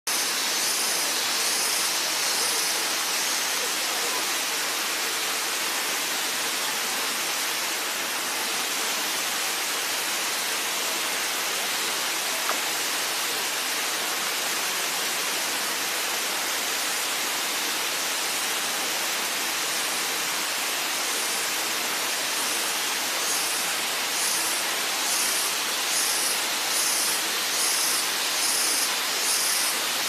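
Steady rushing of water at the Pala-U waterfall, an even hiss that does not change. A high-pitched pulsing chirp, about two a second, sounds over it near the start and again through the last third.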